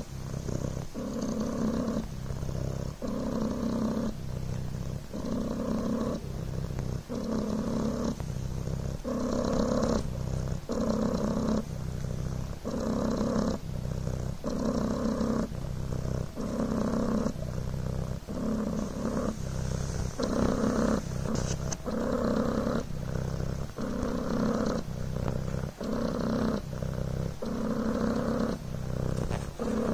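Devon Rex cat purring steadily, the purr pulsing about once a second as it breathes in and out.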